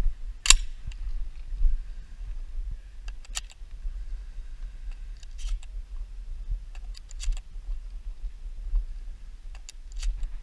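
Handling noise with no shots: a scattered handful of short sharp clicks and light rattles, the loudest about half a second in, over a steady low rumble on the microphone.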